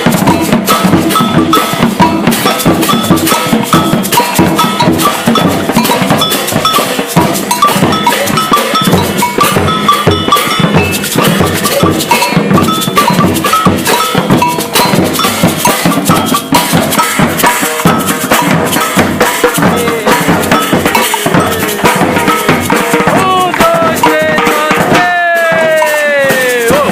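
Batucada percussion ensemble playing a fast, steady rhythm on drums, with a cowbell ringing over the beat. Near the end, a few pitched sounds glide downward over the playing.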